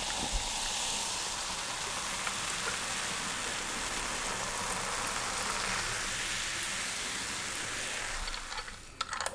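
Cola poured from a can into a glass, the carbonated foam fizzing with a steady hiss. The fizz eases off near the end, with a few small clicks.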